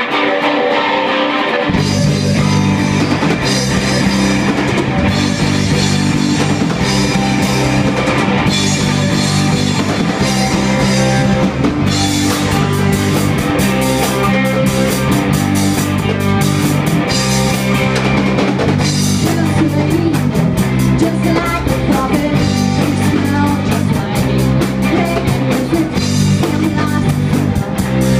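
Live rock band playing loud: electric guitar alone at first, then about two seconds in the bass guitar and drum kit come in and the full band plays on with heavy cymbals.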